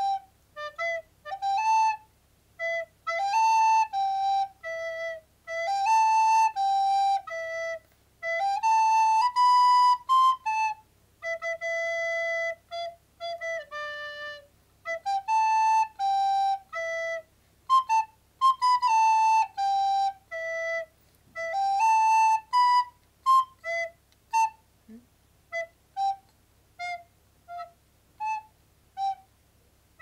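Plastic soprano recorder playing a simple melody in phrases of connected notes with short pauses between them. Near the end it breaks into a run of short separate notes, about two a second.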